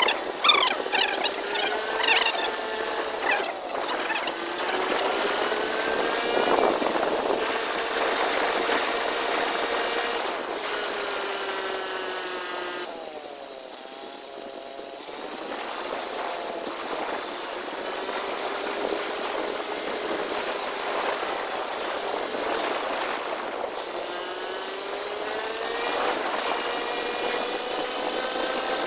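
Motorcycle engine under way, its pitch climbing as it accelerates and dropping as it shifts or eases off, several times over. About halfway through it falls to a lower, quieter note for a couple of seconds, then pulls up again.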